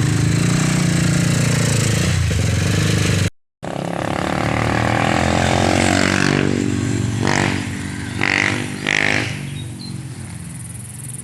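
Motorcycle engines running loudly, with the note rising about four seconds in as a bike revs and accelerates, then fading toward the end. The sound cuts out completely for a moment about three seconds in.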